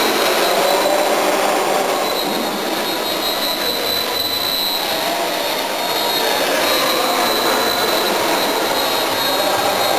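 Radio-controlled model helicopter flying close by, its motor and rotors giving a steady high whine that wavers slightly in pitch, echoing in a large hall.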